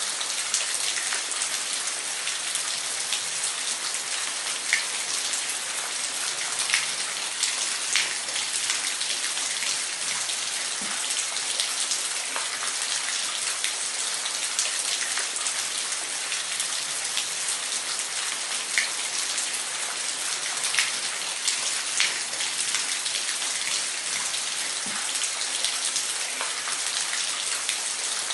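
Steady hiss of falling, splashing water, with scattered sharper drip-like ticks standing out every second or two.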